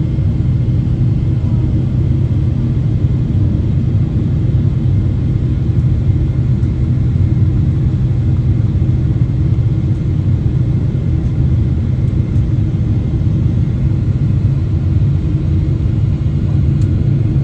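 Steady low rumble of airliner cabin noise, the engines and airflow heard from inside the cabin during the descent.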